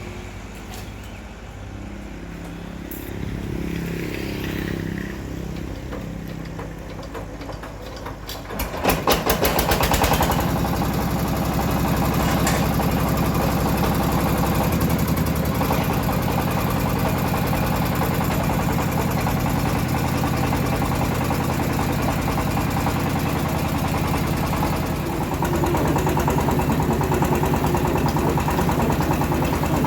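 Engine of a homemade bandsaw mill running at idle, then revving up sharply about nine seconds in and running steadily at high speed, rising a little further near the end.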